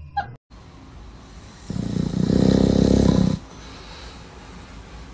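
A dog snoring in its sleep: one long, loud snore beginning a little under two seconds in and lasting about a second and a half.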